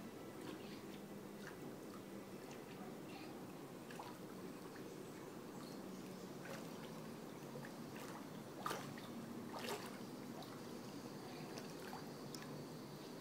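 Pool water lapping and trickling quietly around bodies moving slowly through it, with small scattered splashes and two louder ones about a second apart past the middle.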